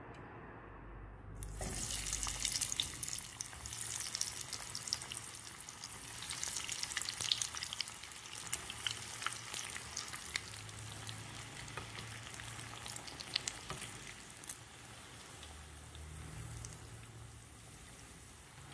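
Corn-potato cheese balls deep-frying in hot oil: a steady sizzle full of sharp crackles and pops. The sizzle starts suddenly about a second and a half in, as the balls go into the oil, and is loudest for the next few seconds before settling a little.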